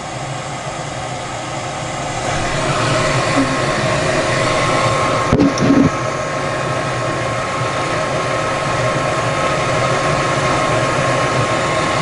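Lennox Elite gas furnace's circulating blower coming on for first-stage heat: a rush of air and motor hum that swells over about a second, two to three seconds in, then holds steady. A short knock about five seconds in.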